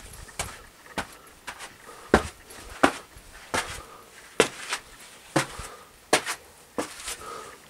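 Footsteps walking on a sandy rock path, a sharp crunching step about every two-thirds of a second.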